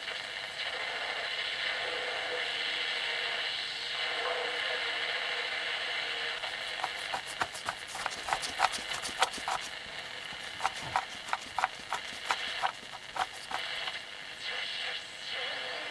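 Homemade slug-tuned shortwave radio receiving a distant station through hiss, with the signal in quick fading. About halfway through, a run of sharp clicks at roughly three a second comes through the speaker for several seconds.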